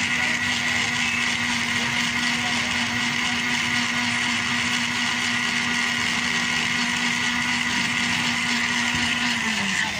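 Electric blender motor running steadily while blending a banana milkshake in its jar, then winding down in pitch as it is switched off near the end.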